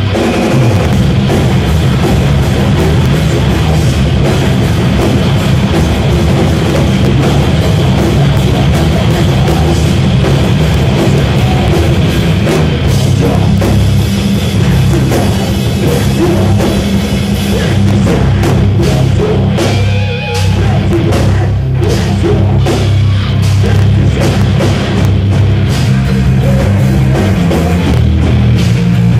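Live rock band playing loud, heavy music: electric guitar and a drum kit, with a brief break about two-thirds of the way through.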